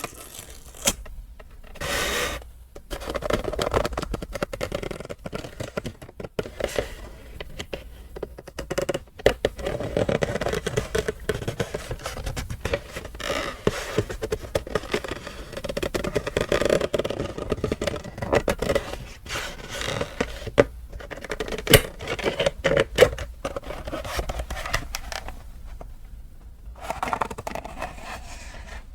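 Close-up handling and unpacking of leather goods and their packaging: continuous scraping and rustling with many small clicks and taps, briefly easing off a couple of times.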